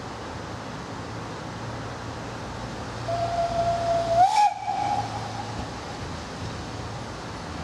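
Whistle of a saddle-tank industrial steam locomotive blown once, held for about a second and a half, its pitch rising slightly just before it cuts off.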